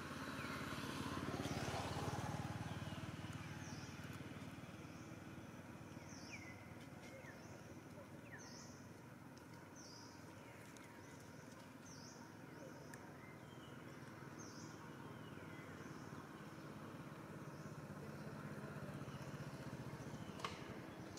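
Outdoor ambience: a motor vehicle's engine swells and fades in the first few seconds, while small birds chirp short high calls about once a second.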